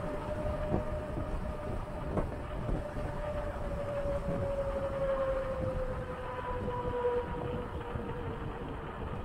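Touring bicycle rolling fast on asphalt: a steady hum from the tyres that slowly falls in pitch as the bike loses speed, over wind rushing on the microphone.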